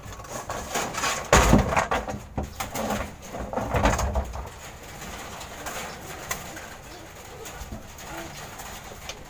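Racing pigeons cooing in a loft. Loud rustling and knocks in the first half, then quieter cooing.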